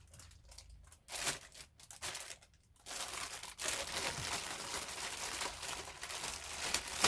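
Plastic packaging bag being handled and crinkled open: a few short rustles, then steady crinkling from about three seconds in.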